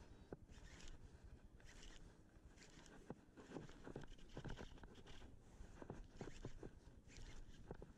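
Faint, irregular small slaps and rustles, several a second, over a low rumble: sea water lapping against a kayak's hull and the angler's gloved hand handling the fishing line.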